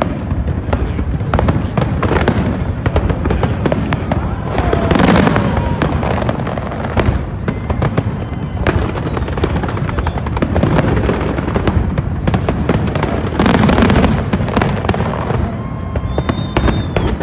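Large fireworks display: a rapid, continuous string of bangs and crackle from aerial shells, with two louder crackling bursts about five seconds in and again near fourteen seconds.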